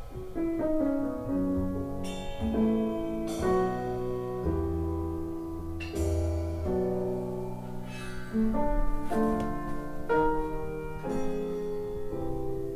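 Instrumental piano music played back through Yamaha NS1000 loudspeakers, a steady run of struck notes.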